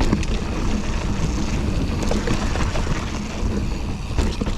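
Mountain bike riding a dry, dusty dirt trail: steady low wind rumble on the action camera's microphone mixed with tyre noise, with scattered clicks and rattles from the bike.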